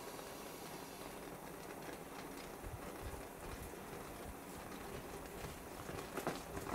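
Rice porridge simmering in a covered ceramic donabe (clay pot): a faint steady bubbling hiss, with irregular pops and clicks that grow louder and more frequent near the end as the pot boils and steams.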